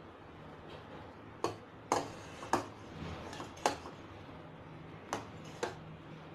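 A steel spoon clinking against a steel saucepan while stirring milk: about six short, sharp clinks spread unevenly over several seconds.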